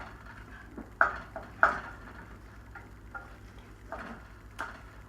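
A spoon knocking and clinking irregularly against a stock pot as the soup is stirred, with the loudest clinks about a second in.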